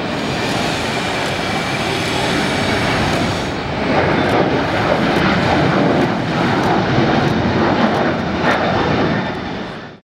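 A Boeing 737-800's CFM56-7B jet engines at takeoff thrust as the airliner rotates and climbs away: a loud, steady rush that grows louder about four seconds in, then cuts off suddenly near the end.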